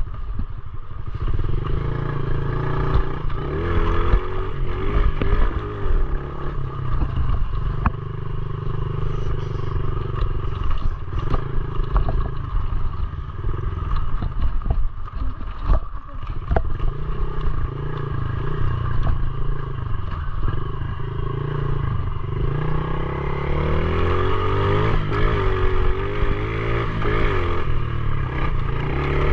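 Pit bike engine running while being ridden, its pitch rising and falling as the throttle opens and closes. Short knocks and rattles come from the bike over the rough track.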